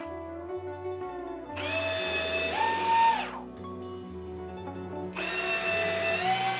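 Cordless drill running in two bursts of about a second and a half each against a plywood jig. Each whine steps up in pitch near its end. Background music plays throughout.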